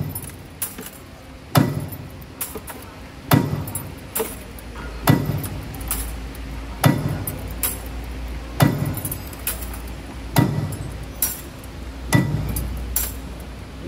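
CNC universal wire bending machine with a punching device running its automatic cycle on 1.0x12 mm flat wire: a loud metallic strike about every 1.7 seconds, with lighter clicks and clinks between the strikes over a steady low machine hum.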